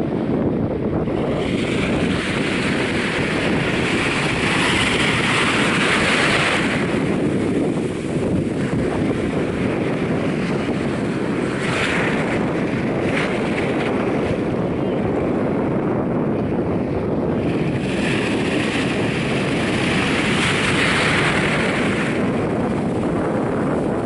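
Small Caribbean waves washing up over sand at the water's edge, over a steady low rumble of wind on the microphone. The hiss of the wash swells twice, from about a second in to about six seconds, and again for a few seconds near the end.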